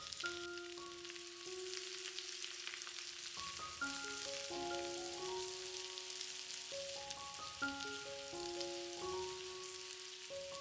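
Purple onion frying in butter in a pan, giving a steady crackling sizzle. A gentle melody of held, mallet-like notes plays over it.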